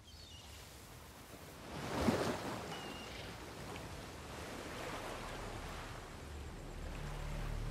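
Sea waves washing up on a sandy beach, swelling loudest about two seconds in and again near five seconds. A low steady tone from the score comes in near the end.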